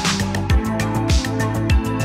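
Background music: an electronic track with a deep kick drum about twice a second under sustained synth chords.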